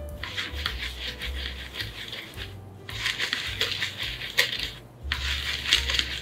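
Wet rice flour being rubbed by hand through a fine stainless-steel mesh sieve: a gritty scraping hiss in three spells, with short breaks about two and a half and five seconds in.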